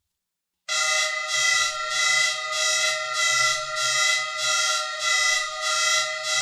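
Electronic science-fiction sound effect: after a brief silence, a steady chord of several held electronic tones over a low hum starts about a second in, its bright upper layer throbbing about twice a second.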